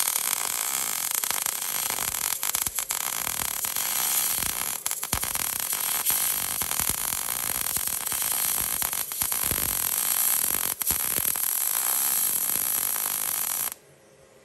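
Wire-feed (MIG) welder arc crackling steadily as a weld bead is run overhead, joining a thick steel plate to a car's chassis rail, with a few brief breaks in the arc. The arc stops abruptly just before the end.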